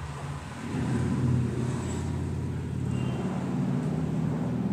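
Low, steady rumble of a motor vehicle's engine, swelling about a second in and then holding.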